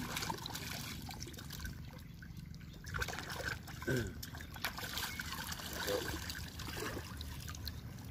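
Shallow seawater splashing and trickling as a large sailfish is handled and moved through ankle-deep water by wading hands and feet.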